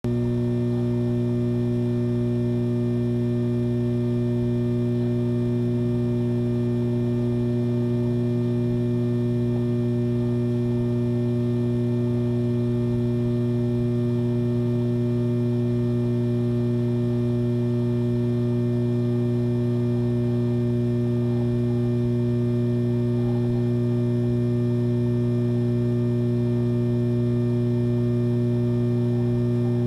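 Steady low electronic hum, unchanging in pitch and loudness, with a stack of overtones above it.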